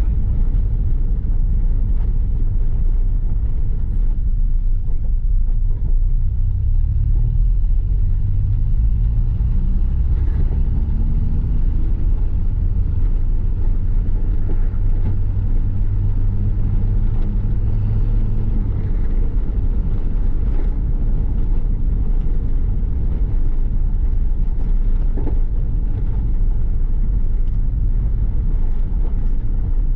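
Square-body VW Gol's carburetted CHT four-cylinder engine running on the road through a 'turbinho' exhaust, over a steady low rumble. The engine note climbs as it accelerates about six seconds in, holds steady for several seconds, then fades back into the rumble.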